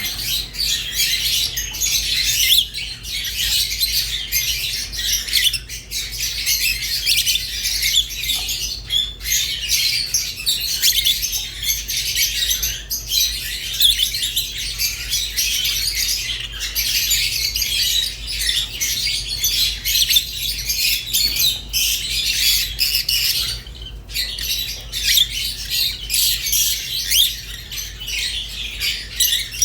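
Rosy-faced and Fischer's lovebirds chattering without a break, a dense stream of shrill chirps and squawks.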